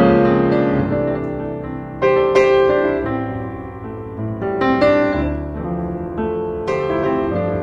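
Background piano music: slow chords struck every two seconds or so, each ringing and fading before the next.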